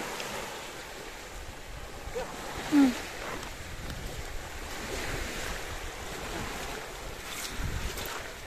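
Small waves washing onto the beach, with wind on the microphone. About three seconds in, a short, loud call falling in pitch.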